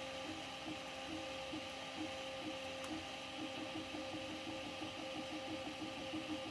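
Prusa MK4 3D printer printing at 60 mm/s: the stepper motors sing in short, changing tones as the printhead darts back and forth, over a steady whir.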